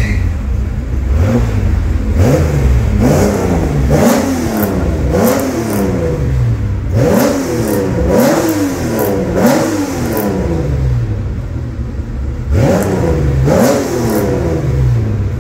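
Classic car's engine revved repeatedly through its existing twin-tip exhaust: about ten quick blips, each rising and falling back, roughly one a second with a short pause a little after the middle, idling in between. It is a check of the exhaust's current sound, which is called a good sound, though the muffler builder finds the catalytic converter restricts flow.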